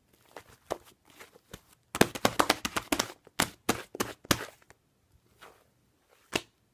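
Fluffy chocolate whipped-cream slime being squished and pressed by hand, giving quick crackling, popping clicks, a dense run about two to four seconds in, then a few scattered pops.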